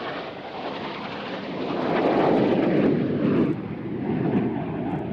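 Fixed-wing aircraft flying past, its engine noise swelling to a peak about two seconds in and then holding.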